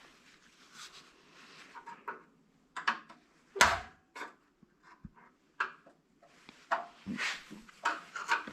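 Scattered knocks, clicks and scraping of tools and scrap parts being handled on a workbench, with one sharper knock about three and a half seconds in.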